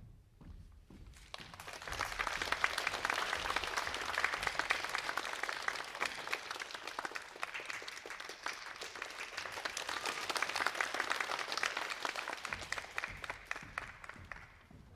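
Audience applauding: a dense patter of many hands clapping that swells about a second in and dies away near the end.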